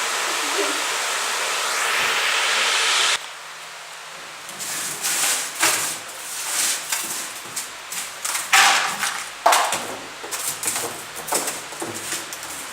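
A steady rushing hiss that cuts off suddenly about three seconds in, followed by irregular knocks, clinks and scrapes of ice being worked loose from a refrigerator's freezer plate during defrosting.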